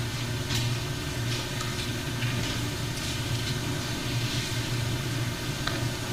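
Steady low hum with hiss on the recording's sound, with a few faint rustles of paper pages being handled on the lectern.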